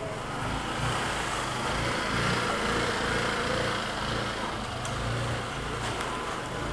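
A small engine running steadily, with a low hum that rises and falls slightly.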